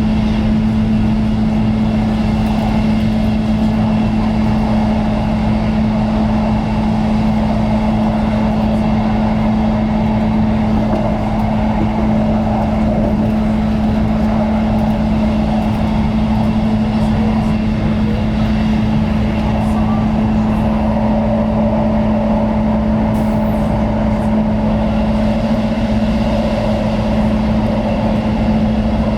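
Diesel passenger train running at speed, heard from inside the front coach: a loud, steady engine drone with a constant hum and the rumble of the wheels on the track.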